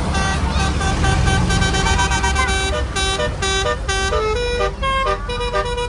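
A tour bus's musical multi-tone horn plays a quick tune of short notes that step up and down in pitch, over the bus's low engine rumble. The rumble fades about halfway through while the horn tune carries on.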